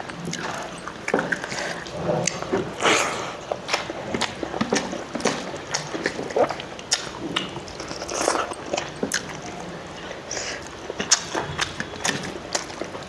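Close-up eating sounds of a person chewing a mouthful of rice, with irregular wet mouth clicks and lip smacks.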